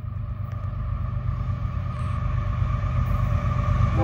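Diesel freight locomotives approaching, their engines a steady low rumble that grows slowly louder.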